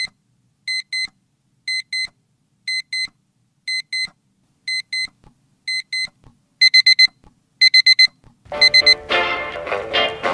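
Windows Phone alarm beeping: short electronic double beeps about once a second, which turn into louder groups of four about two-thirds of the way through. About a second and a half before the end, music with a beat comes in.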